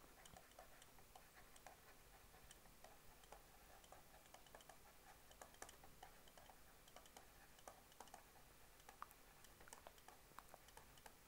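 Near silence with faint, irregular light ticks of a stylus writing on a tablet screen.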